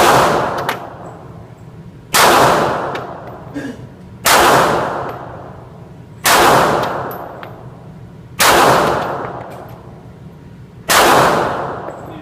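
Glock 42 .380 ACP pistol fired six times, slow aimed shots about two seconds apart, each sharp report followed by a short ringing decay.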